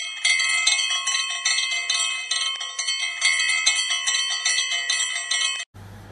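Intro jingle of bright bell or chime tones, struck in a quick repeating pattern, which cuts off suddenly near the end. A low steady hum and faint room noise follow the cut.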